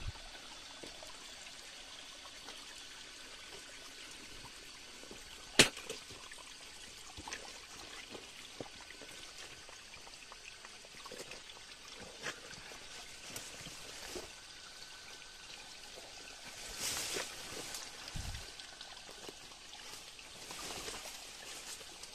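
Water trickling steadily, with one sharp click about six seconds in and a scatter of fainter ticks.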